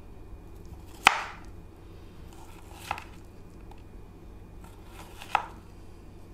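Kitchen knife slicing through a firm log of chilled compound butter, the blade knocking on a wooden cutting board three times, the first knock, about a second in, the loudest.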